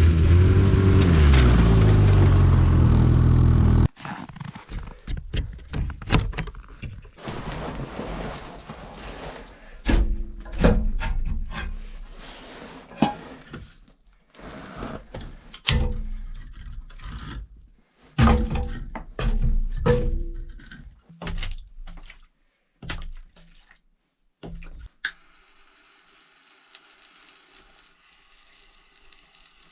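A motor running with shifting pitch for about four seconds, cutting off suddenly, followed by a long series of irregular knocks, thunks and scraping sounds, which die down to a faint hiss near the end.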